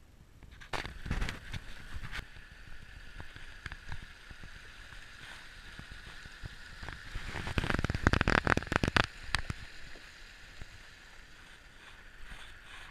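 Steady rushing of running water, with clattering knocks and rustling from walking on a rocky trail, loudest about eight seconds in.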